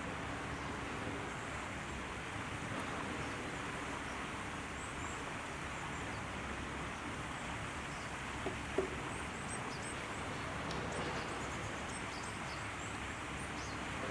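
Steady outdoor background noise with faint high bird chirps, and two short sharp sounds about eight and a half seconds in.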